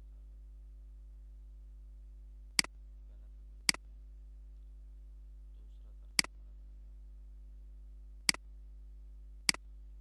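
Computer mouse clicking five times at uneven intervals. Each click is a sharp press followed at once by a softer release, over a steady low electrical hum.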